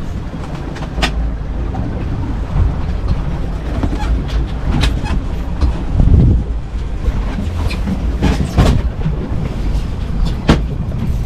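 Sport-fishing boat running on open sea: a steady low engine and hull rumble with water rushing, broken by a few sharp knocks and rattles.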